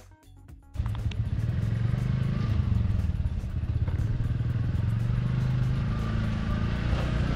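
Soft background music, cut off about a second in by a quad bike engine running steadily and close, a low, fast-pulsing hum.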